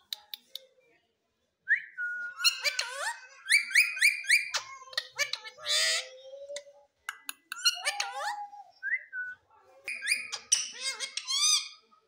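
Indian ringneck parakeet whistling and chattering in quick runs of rising whistled notes and chirps, with a few sharp clicks near the start.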